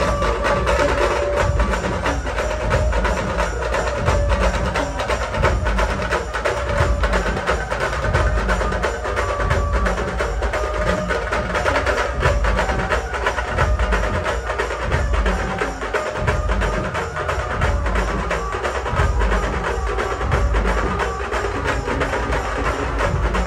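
Dance music playing loudly through a DJ truck's speaker stack: a regular deep bass beat under a sharp, woodblock-like percussion pattern and a short repeating melody.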